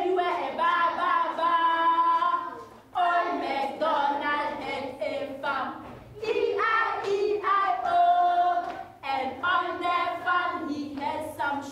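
A class of young children singing a song together without accompaniment, in phrases of a few seconds with short breaks between them.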